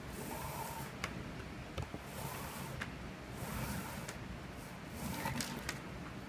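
Faint rustling and swishing of nylon paracord strands being handled and drawn through the weave, with a few light clicks.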